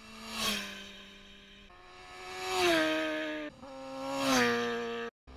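Sport motorcycles passing one after another at speed on a race track, three passes, each engine note swelling and dropping in pitch as the bike goes by. The sound cuts off suddenly near the end.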